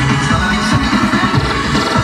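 Loud electronic dance music mix played over outdoor PA loudspeakers.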